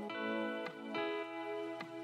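Instrumental background music with notes plucked about twice a second.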